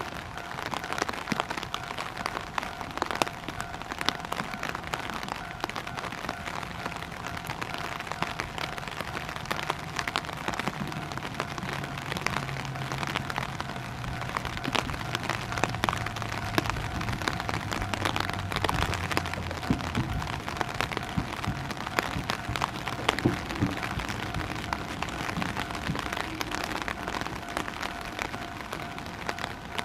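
Steady rain with scattered sharp drips, under the steady tone of a level-crossing warning alarm. From about ten seconds in, an Ichibata Electric Railway 3000-series electric train approaches and slows into the station, its low running sound falling in pitch as it brakes.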